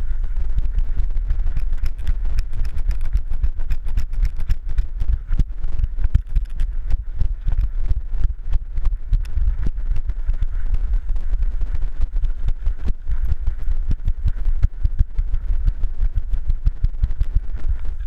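Dog-mounted GoPro bouncing with a running dog: a steady low rumble of wind and jostling on the camera, with a constant run of quick, irregular knocks and rattles from the mount.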